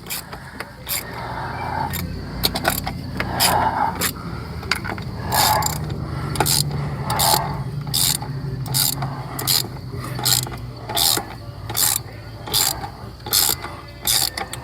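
Ratchet wrench clicking in short, repeated strokes, about two a second, as a fitting on a fuel pressure regulator is run down after catching its thread.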